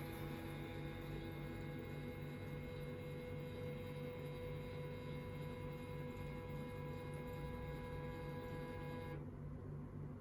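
A steady low hum with several steady higher tones above it; the higher tones and hiss cut off suddenly about nine seconds in, leaving the low hum.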